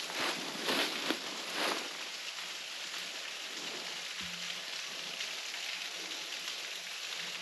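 Steady splashing patter of a small, low-flow waterfall, with a few crunching footsteps in dry leaf litter in the first two seconds.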